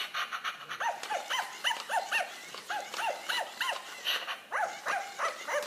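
FurReal Friends I Chase My Tail puppy toy giving electronic yipping barks while it moves, about three to four short high yips a second, each rising and falling in pitch.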